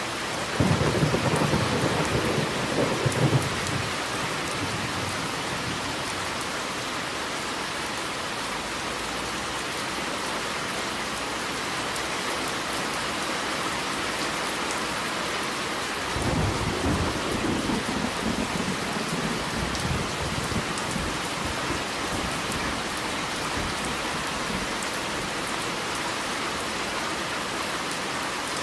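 Steady heavy rain falling, with two rolls of thunder: one just after the start lasting about three seconds, and a longer, softer rumble beginning about sixteen seconds in.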